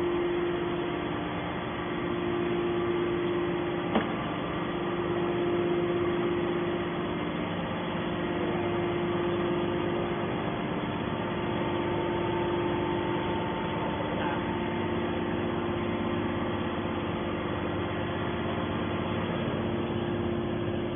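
Hydraulic baling machine running with a steady mechanical hum whose level swells and fades a little, and one sharp click about four seconds in.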